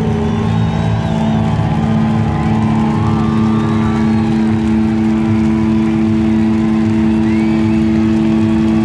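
A live rock band's amplified instruments holding a steady drone of two sustained notes through the PA at the end of a song, over a rough low rumble.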